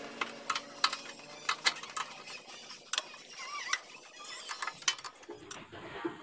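Irregular sharp metallic clicks and clinks of an adjustable wrench working bolts on a motorcycle frame as they are loosened.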